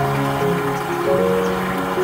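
Background music: an instrumental piece of held notes that move in steps, several sounding together.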